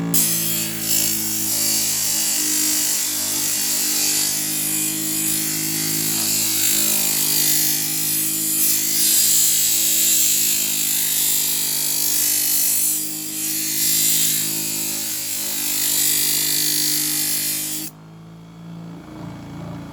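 Knife blade being ground on the abrasive wheel of an electric scissor-sharpening machine: a steady high grinding hiss over the motor's hum, evening out the bevel. The grinding stops about eighteen seconds in.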